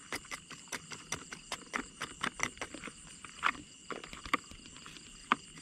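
Quick, irregular clicks and knocks, several a second at first and thinning out later, over a steady high-pitched drone.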